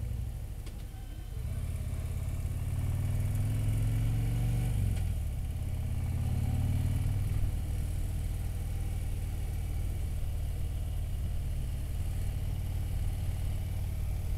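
Motorcycle engine pulling away and accelerating, its pitch rising, dropping suddenly about five seconds in at a gear change and rising again, then running steadily at cruising speed.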